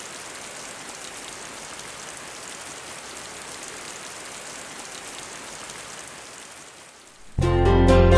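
Steady rain falling, an even hiss that fades down around seven seconds in. Music with a strong bass starts suddenly near the end.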